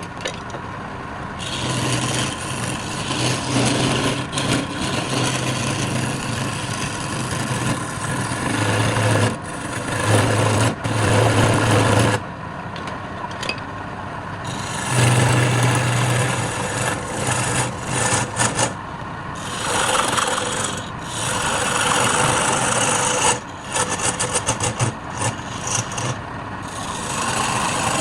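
Wood lathe running with a motor hum, while a cutting tool or abrasive scrapes and rasps against the spinning wood in uneven strokes, with a few short pauses.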